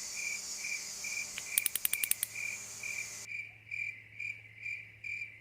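Cricket chirping, a steady single-pitched chirp repeated about twice a second, with a short run of sharp clicks about two seconds in.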